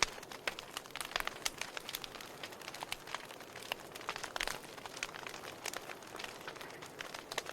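Wood fire burning in a fireplace: a steady soft hiss with irregular sharp crackles and pops from the burning logs.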